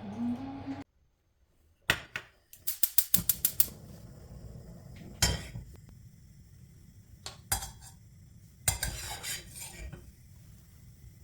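Kitchen utensils and a pan clinking and knocking: a quick run of about eight taps around three seconds in, then a few single knocks and a short clatter later on.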